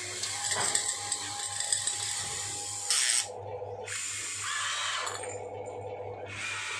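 Small electric gear motors of an RC toy excavator whirring as the boom and bucket move. The whir shifts several times between a higher hiss and a lower whine as different motions start and stop, with a short louder burst about three seconds in.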